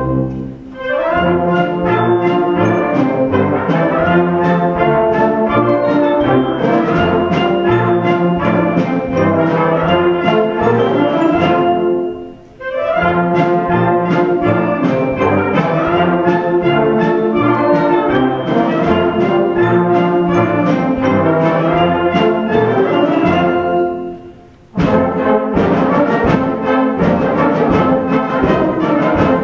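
Live band music with brass instruments to the fore: sustained chords and melodic phrases, broken by brief pauses between phrases, once near the middle and again about four-fifths of the way in.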